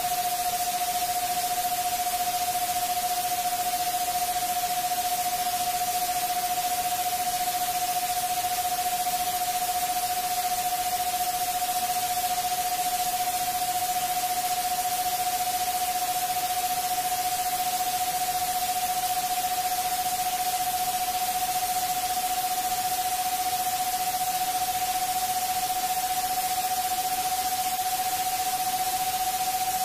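Electronically generated pure tone, mid-pitched and steady, creeping very slowly upward in pitch, over a constant hiss of white noise: a 'subliminal frequency' sleep track.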